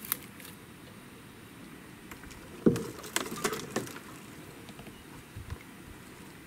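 A sharp click, then a short cluster of knocks and clatter about three seconds in, over a faint steady background hiss.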